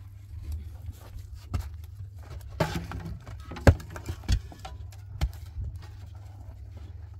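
Concrete blocks being handled and set on a block wall: a handful of sharp knocks and scrapes of block against block, the loudest about three and a half seconds in, over a steady low rumble.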